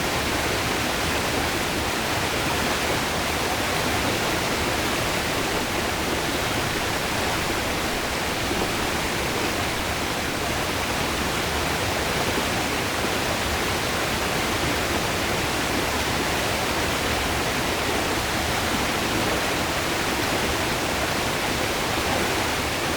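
River water rushing over rocks, a steady, even rush with no change.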